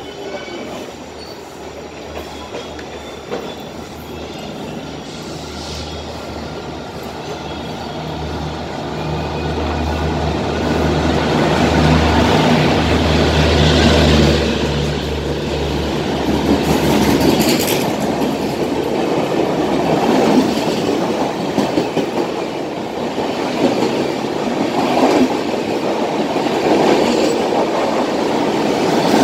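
An express train hauled by a WAP-4 electric locomotive passing through a station platform at restricted speed. A low steady hum builds and is loudest about halfway through as the locomotive and leading cars go by. The coaches then roll past with steady wheel clatter.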